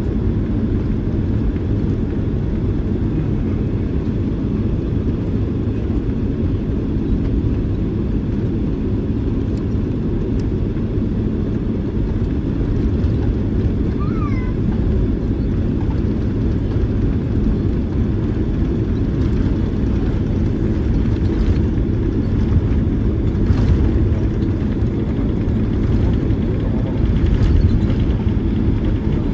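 Steady low rumble of a Boeing 767-300ER heard inside the cabin as the jet taxis on its engines. A few light knocks and rattles come through in the last third.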